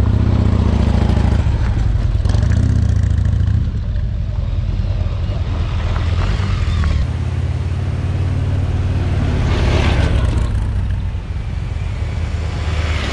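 Motorcycles ride past at low speed with their engines running. First comes a Harley-Davidson V-twin tourer, whose sound is loudest in the first few seconds, then a BMW sport-touring bike. About ten seconds in there is a swell of noise.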